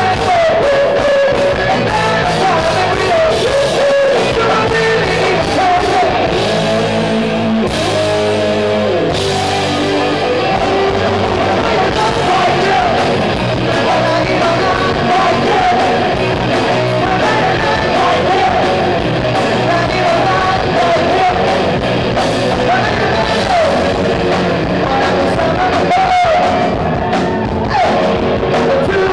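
Live rock band playing loud: distorted electric guitars, drums and a lead singer, heard from the crowd.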